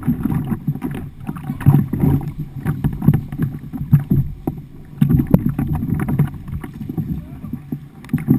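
Kayak on a fast-running flooded river: water splashing and rushing around the boat, heard as an uneven low rumble with scattered knocks.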